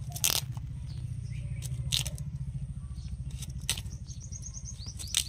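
Raw jackfruit skin being shaved off against the curved blade of a floor-mounted boti knife, in about four short crisp scraping cuts a second or two apart. A steady low hum runs underneath, and a bird chirps several times near the end.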